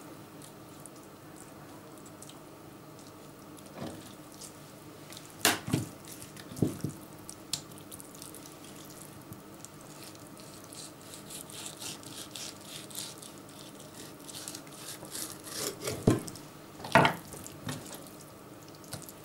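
A fillet knife working the skin off a bream fillet on a wooden cutting board: faint wet scraping and crackling of the blade along the skin, broken by a few sharp knocks and slaps, a pair about a third of the way in and another pair near the end.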